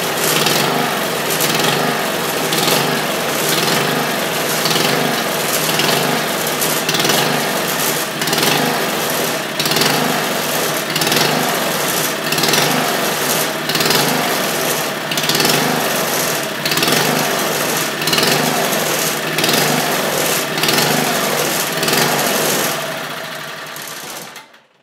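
1974 Tecumseh HT35 3.5 hp single-cylinder four-stroke engine running unevenly during carburetor adjustment, its level swelling and dipping about once a second. It cuts off near the end. The engine runs rough and smoky and still needs its carburetor tuned to run smoother.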